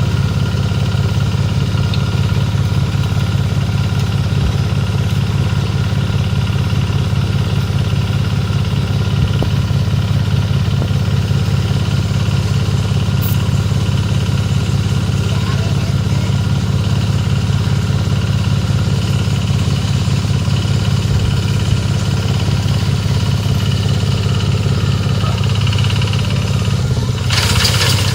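Small engine of a motorised rice reaper running steadily at an even speed. Near the end a short burst of noise sounds over it and the engine note shifts lower.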